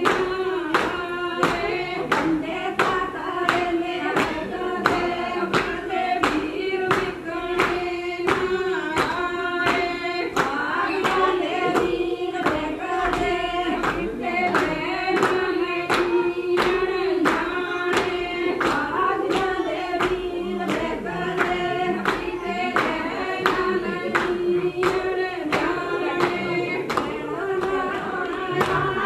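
A group of women singing a folk song together, with steady hand-clapping on the beat.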